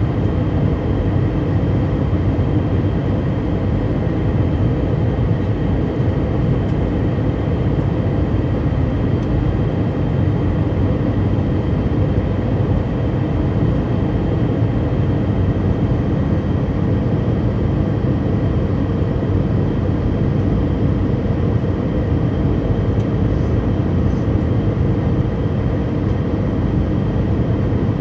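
Cabin noise of an Airbus A319 with CFM56-5B engines, heard from a seat beside the wing on approach: a steady, loud rumble of airflow and engine, with a faint steady high whine above it.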